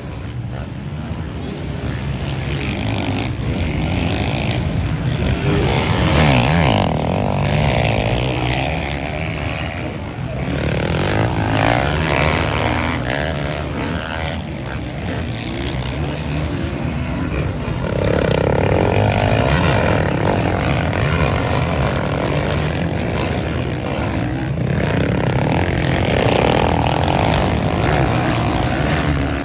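Several motocross dirt bikes racing on a dirt track, their engines revving up and down as riders accelerate and back off, swelling louder about six seconds in and again in the second half.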